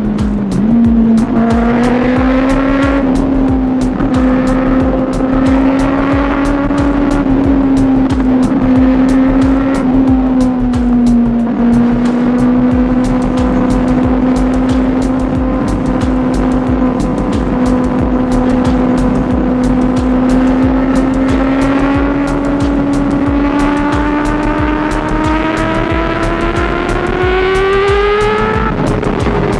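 Kawasaki ZX6R 636cc inline-four engine holding fairly steady revs while riding. Over the last several seconds it rises in pitch, then drops suddenly near the end, as at an upshift. Wind buffets the microphone throughout.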